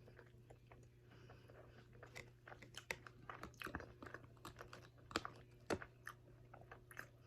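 A person chewing and biting sauce-soaked chicken wings close to the microphone: irregular wet, smacking clicks, a few louder ones a little past halfway.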